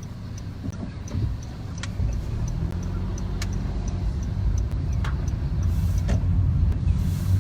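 Car driving, heard from inside the cabin: a steady low engine and road rumble that grows louder, with a few sharp clicks and a faint, regular high ticking.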